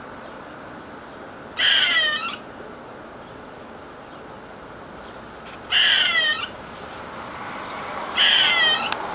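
A squirrel calling: three loud, harsh calls a few seconds apart, each about two-thirds of a second long and made of quick falling notes.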